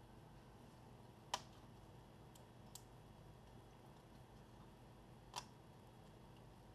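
Faint sharp plastic clicks as the laptop's case parts are handled and clipped together: two clearer clicks about four seconds apart and a couple of fainter ticks between them, over quiet room hum.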